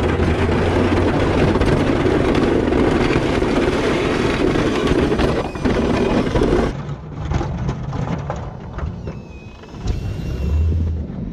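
Pickup truck plowing snow with a Boss V-plow: a loud steady rush of blade, snow and truck heard close at the plow. About seven seconds in it drops suddenly to the quieter low hum of the truck's engine as it pushes into a snowbank.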